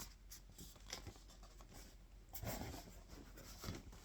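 Faint scratching and rustling of a cardboard parcel and its packaging being handled, with a short, louder scratchy stretch about halfway through.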